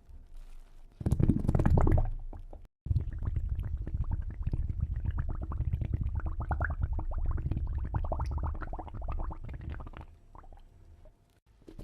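Water bubbling and gurgling, a dense stream of rapid bubble pops: a short loud burst about a second in, then after a brief cut a longer run that fades away near the end.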